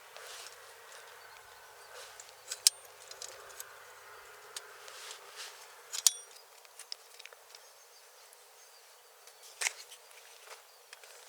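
Quiet outdoor ambience with a few sharp clicks and knocks, one of them, about six seconds in, ringing briefly like metal.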